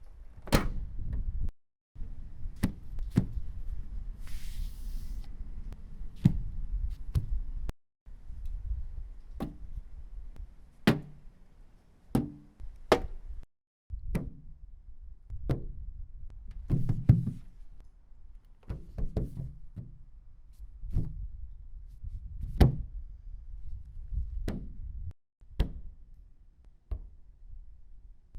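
A series of sharp knocks and thunks on a 1990 Volvo 240, about twenty separate hits over a low rumble, edited together as a string of separate takes.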